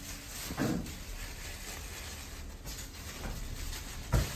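Kitchen handling noises as raw pork is worked in a stainless steel bowl: a short knock about half a second in and a heavier dull thump near the end, over a steady low background hiss.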